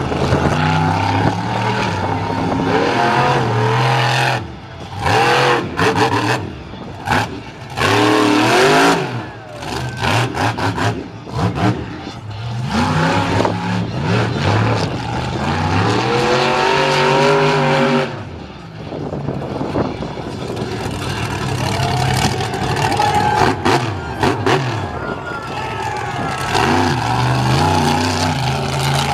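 Monster truck engine revving hard, its pitch repeatedly climbing and falling as the throttle is opened and lifted, with several short lulls between bursts.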